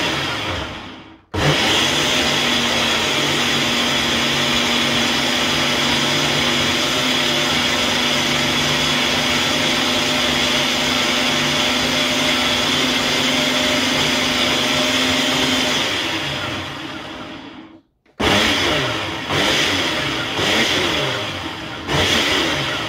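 Countertop blender motor blending a cooked chilli sauce: a short pulse, then a steady run of about fifteen seconds that winds down to a stop, followed by several short pulses of about a second each.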